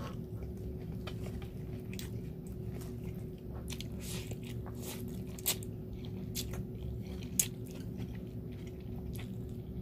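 A man eating a Thai glass-noodle salad (yum woon sen): wet chewing, mouth clicks and smacks, slurping noodles about four seconds in, with two sharper clicks later on.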